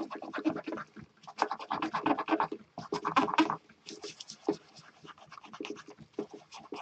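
Kitchen towel wet with isopropyl alcohol scrubbed rapidly back and forth over a keyboard circuit board to clean old adhesive off the contacts. It comes as several bursts of quick rubbing strokes, growing fainter in the second half.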